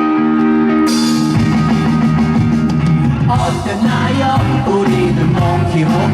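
Live rock band playing loud: a held chord rings for about a second, then drums and cymbals come in and the full band plays on with guitar.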